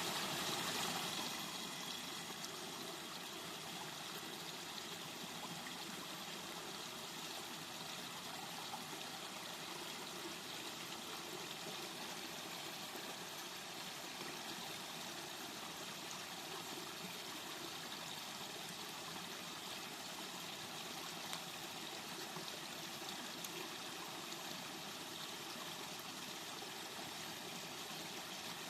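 Waterfall running steadily, an even rush and trickle of falling water, slightly louder in the first second or two.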